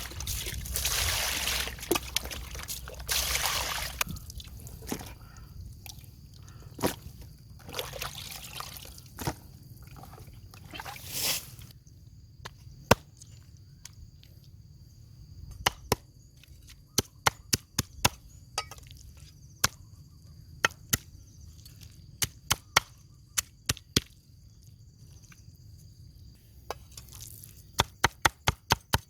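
Water pouring and splashing in swells for roughly the first twelve seconds, as when food is washed in a basin. Then a knife chopping on a cutting board: scattered single strokes, ending in a quick run of chops.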